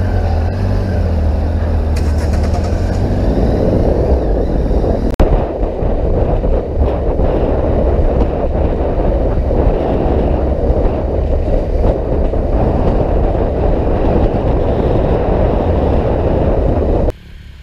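Motorcycle riding along, heard from the bike: a low engine hum at first, then the engine with a steady rushing noise as the bike gets up to speed. There is a brief break about five seconds in, and the sound drops away suddenly near the end.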